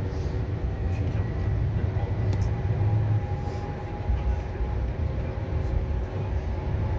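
Interior running noise of an A32 (Alstom Citadis) tram in motion: a steady low rumble of wheels on rails, with a faint steady whine above it.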